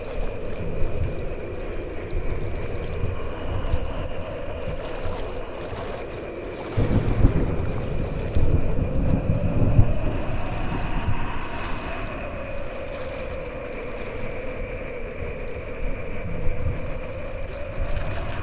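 Storm sound effects: steady wind with a low rumble underneath, and a heavier rumble of thunder that starts suddenly about seven seconds in and lasts about three seconds.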